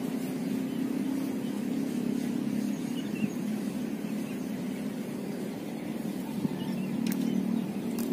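Steady low drone of an engine running.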